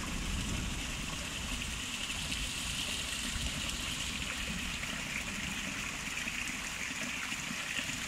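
Running water making a steady, even rushing hiss.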